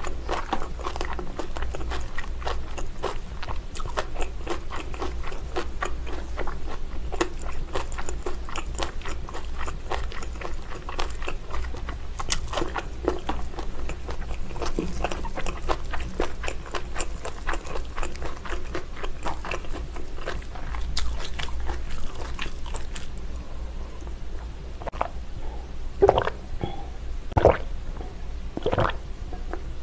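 Close-miked chewing and biting of braised whole pork trotter (jokbal), a dense run of rapid mouth clicks. In the last few seconds come three separate loud gulps as a drink is swallowed from a glass.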